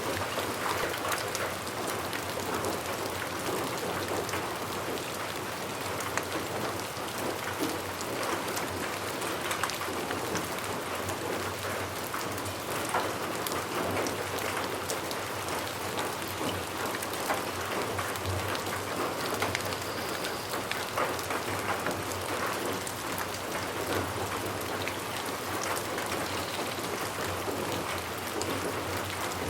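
Steady rain falling on a surface, an even hiss flecked with the sharp ticks of individual drops.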